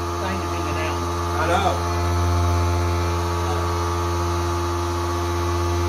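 A steady low hum with a stack of even overtones, unchanging throughout, with a few faint murmured words under it.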